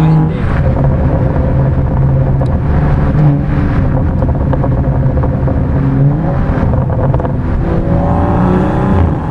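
The BMW 335i's turbocharged N55 inline-six, running a stage 2 tune, pulls along the road. Its pitch drops right at the start as it shifts up, then holds steady under light throttle. In the last couple of seconds it climbs in pitch again as it revs up, and eases off just at the end.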